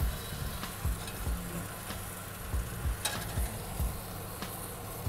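Portobello mushroom caps sizzling in a very hot pan: a steady frying hiss, with several dull low thumps and a sharp clack about three seconds in.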